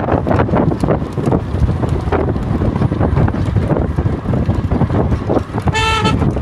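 Wind buffeting the microphone: a loud, rough low rumble with crackle. Near the end comes a brief high-pitched call, a quarter-second cry or shout.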